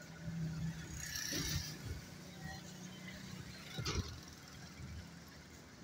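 Motor vehicle traffic on a bridge: a steady low engine hum, with a brief rushing noise about a second in and a sharp knock just before four seconds.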